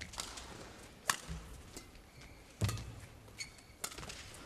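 Badminton rally: racket strings striking a shuttlecock four times, sharp cracks about a second apart, with short high squeaks of court shoes on the floor in between.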